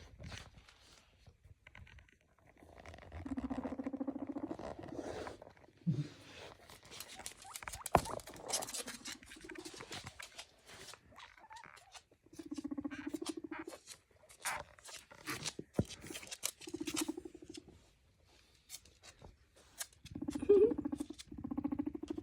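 Guinea pig making low, rapidly pulsing purrs in several bouts of a second or two each, with a short squeak near the end, among scattered small clicks and taps.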